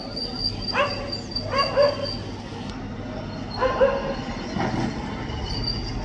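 Street dog barking: several short barks in two groups, one about a second in and another around four seconds in.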